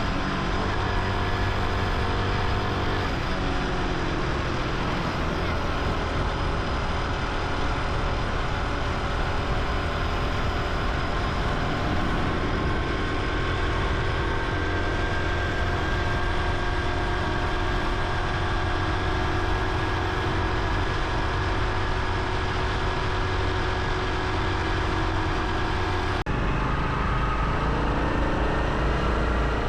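Honda Hunter Cub's small single-cylinder four-stroke engine running while riding, its pitch shifting with speed. The sound changes abruptly a few seconds before the end, with stronger low rumble afterwards.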